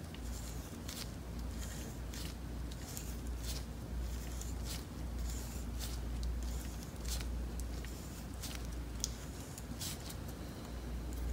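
Irregular faint clicks and small handling noises from a Heli-Coil insertion tool being turned slowly by hand, winding a wire thread insert into a stripped hole in an aluminium engine case, over a low steady hum.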